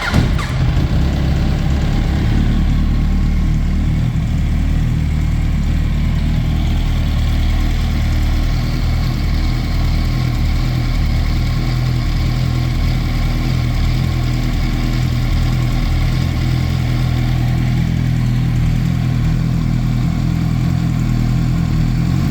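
Yamaha R1 inline-four engine idling steadily, just after being started, with a noise the owner finds strange.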